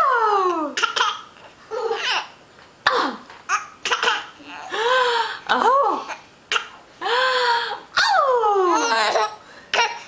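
A baby laughing in repeated bursts, several of them long high-pitched cries that fall in pitch, with short sharp catches in between.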